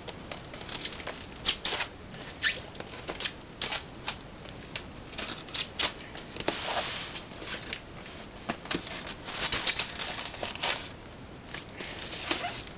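Styrofoam packing insert scraping and squeaking against a cardboard box as it is worked loose and lifted out by hand, in irregular short scrapes and clicks, with a longer stretch of scraping near the middle.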